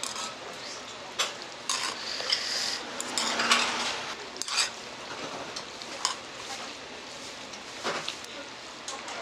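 Metal chopsticks mixing cold buckwheat noodles in spicy sauce in a stainless steel bowl: wet squishing and stirring, with sharp clicks of metal against the bowl. The squelching is loudest and densest about three to four seconds in.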